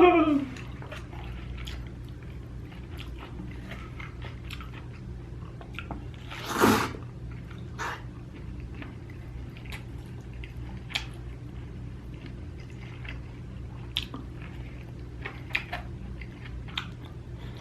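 A person chewing food close to the microphone, with many small wet mouth clicks. A short voiced sound falling in pitch right at the start, and one louder breathy rush lasting about half a second about seven seconds in.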